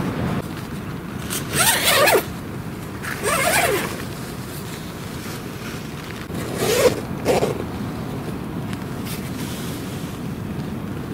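Zippers being pulled open in three quick runs, about two, three and a half and seven seconds in, over steady low wind noise.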